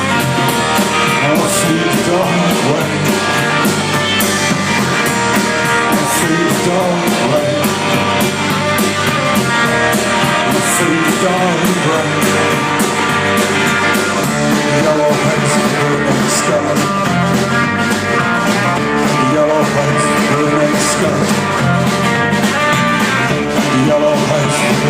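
Live band playing an instrumental passage of an acoustic gothic-blues rock song, guitars to the fore over a steady beat.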